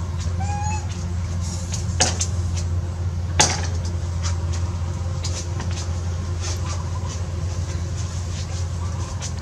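A steady low hum, with a short wavering call about half a second in and two sharp clicks about two and three and a half seconds in.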